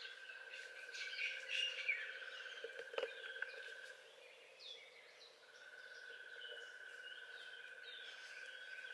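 Faint birds chirping against a steady high-pitched tone that stops about four seconds in and comes back about a second and a half later, with a single click near the middle.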